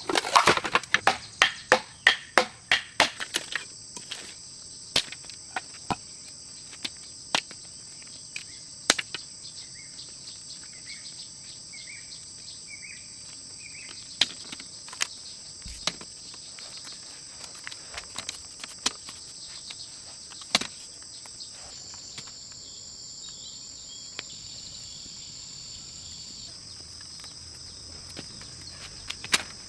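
Insects chirring steadily and high, like crickets, their pitch shifting for a few seconds past the middle. A quick run of sharp knocks fills the first few seconds, then single knocks and clicks come scattered.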